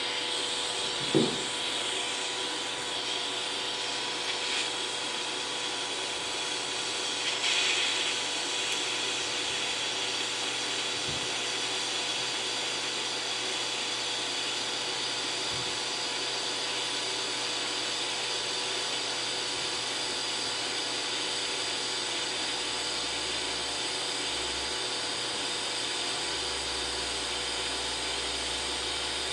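Steady hiss and buzz of a DC TIG welding arc from a Forney Easy Weld 180 ST, lift-started and run at about 95–100 amps on steel plate while 3/32-inch filler rod is fed in. There is a sharp click about a second in.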